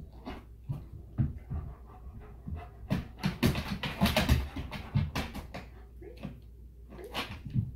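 A German Shepherd panting in quick, noisy breaths while moving about, with its paws knocking on a plastic step platform as it climbs on; the panting is busiest in the middle.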